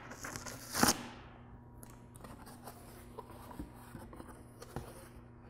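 Taped cardboard carton being opened by hand: one short, loud rip about a second in as the top flaps are pulled apart, then soft rustling and light knocks of cardboard.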